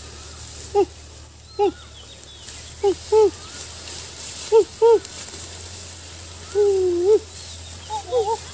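Wordless human calls: short, arched cries in small clusters, with one longer, wavering call about two-thirds of the way through, over a faint steady low hum.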